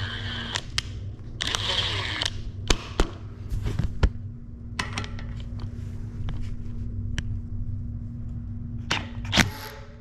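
A cordless impact wrench runs in a short whirring burst about one and a half seconds in, driving the FR6 freewheel removal tool to break the freewheel loose. Scattered sharp clicks and knocks of tools and parts being handled follow.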